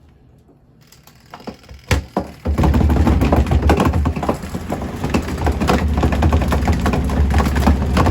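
Portable mini washing machine's spin cycle starting with a sneaker in the spin basket. A few clicks come first, then about two and a half seconds in a loud steady hum sets in with constant knocking and rattling. The shoe sits unbalanced in the basket and makes the machine shake.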